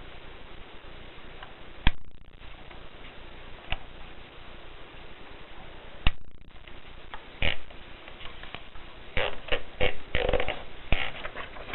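Olympia manual typewriter being worked: a few single sharp key strikes spaced seconds apart, then a quicker run of heavier strokes near the end.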